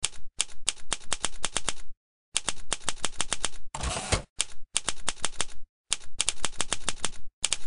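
Typewriter sound effect: runs of quick keystroke clicks, several a second, broken by short silences, with a half-second carriage-return sweep about four seconds in between the first and second lines.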